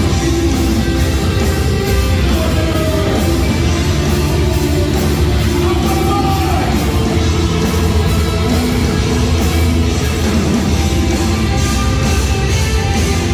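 Live rock band playing loud, heavy rock with electric guitars, bass and drums, steady throughout.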